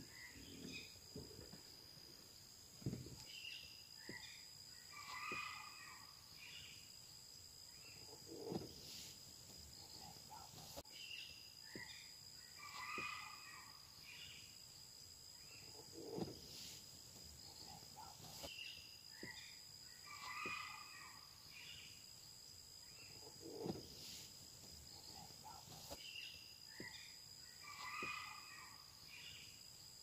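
Faint forest ambience: a steady high insect drone throughout, with a bird calling in a short burst of notes that comes back every seven to eight seconds and a few brief low calls between them.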